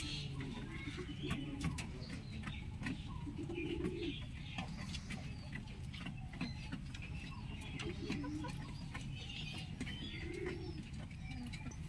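Birds calling in the open: a low, soft cooing call three times, with faint chirps of small birds, over a steady low rumble. The rooster does not crow.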